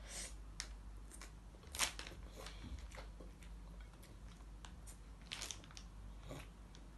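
Faint, scattered smacking and clicking of a toddler eating rice with his fingers and chewing, with a couple of louder smacks about two seconds in and again past the middle.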